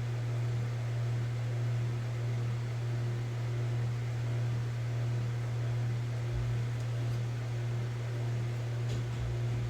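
Steady low hum under an even hiss, unchanging throughout.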